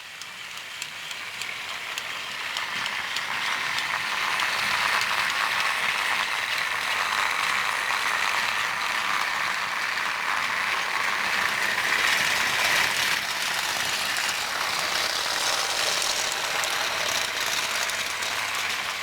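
Battery-powered Trackmaster toy train motors and gears whirring as the trains run along, with a fine rapid ticking. The sound grows louder over the first few seconds, then holds steady.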